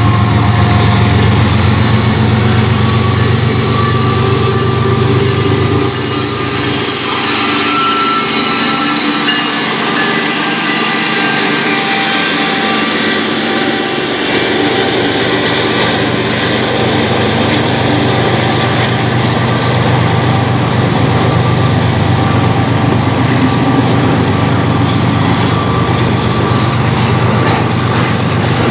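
A Union Pacific diesel-hauled double-stack freight train passing close by. The locomotives' deep engine drone comes first, then a loud rush as they go by, then the steady rolling rumble of container cars on the rails, with a few wheel clicks near the end.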